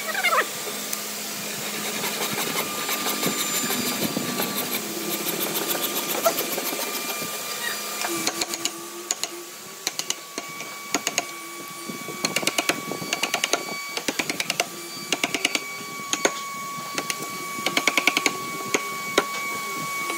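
Chisel and mallet cutting a notch into a wooden beam: sharp wooden knocks and rasping cuts, coming in quick bunches from about eight seconds in.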